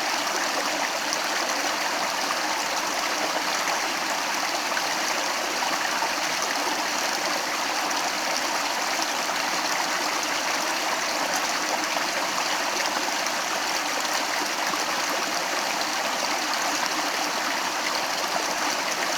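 Water stream flowing steadily over rocks, an even rushing and gurgling.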